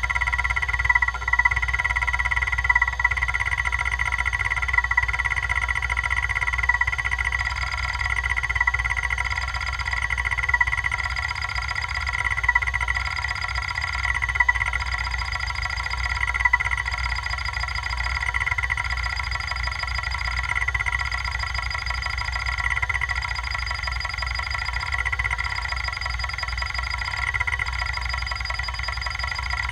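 Kalok KL-320 MFM hard drive running a seek test: a steady high whine with rapid chattering of the heads seeking back and forth, and a faint pattern repeating about every two seconds. The drive is badly damaged, with one head arm removed, and is reporting bad sectors.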